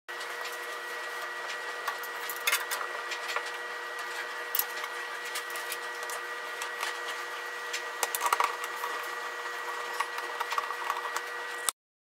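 Clicks and light knocks of a furnace's condensate collection box being handled and fitted back onto the heat exchanger, busiest about two and a half seconds in and again around eight seconds. Underneath runs a steady hum with a high whine.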